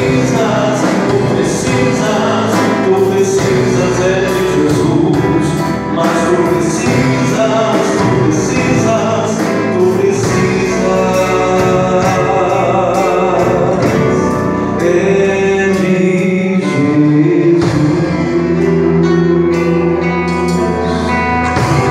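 Live gospel band playing with singing: vocals over guitar, bass and drums with cymbals.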